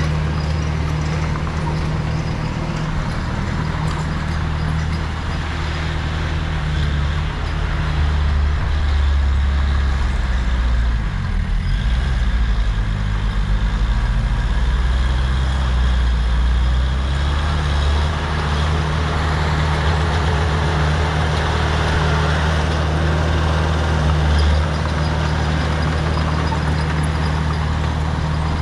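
Heavy diesel engine of earthmoving machinery running steadily. Its note rises and eases several times as it takes load, with the biggest swell in the middle.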